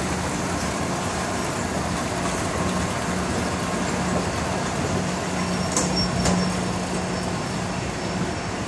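Road traffic on a busy multi-lane city street: cars and buses passing in a steady wash, with a low steady hum underneath that fades out about seven seconds in.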